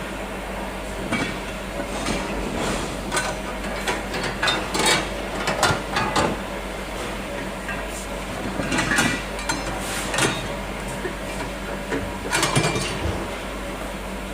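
Boxing-type rice mill with attached grinder and pulverizer running, a steady mechanical hum with irregular rattling and clattering over it.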